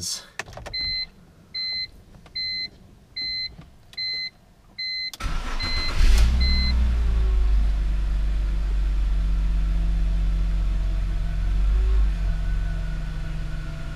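Dashboard warning chime beeping about once a second at key-on, then a BMW E46 325xi's 2.5-litre inline six cranks briefly and starts about five seconds in, flaring up in revs before settling into a steady idle. The idle is smooth now that the leaking crankcase ventilation system and cracked vacuum line have been replaced.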